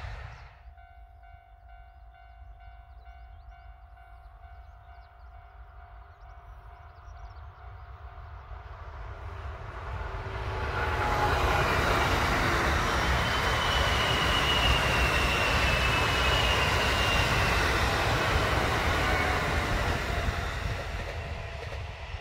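Kintetsu Osaka Line 10-car rapid express, an electric commuter train, approaching and passing: its wheel-and-motor rumble builds from about nine seconds in, stays loud for some ten seconds with a faint falling whine over it, and fades away near the end.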